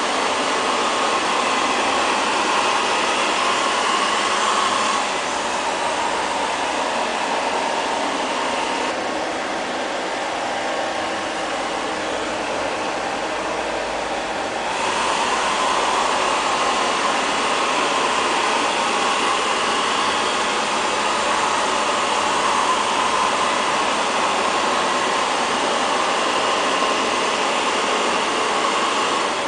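LL-306 (X500) robot vacuum cleaner running, a steady whirring from its suction motor as it cleans a tiled floor. The whir drops a little about five seconds in and comes back up about ten seconds later.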